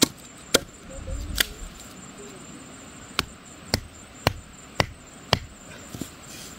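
Sharp wooden knocks from a machete chopping a bamboo stake to a point, then a stone hammering bamboo stakes into the ground, five blows at about two a second near the end.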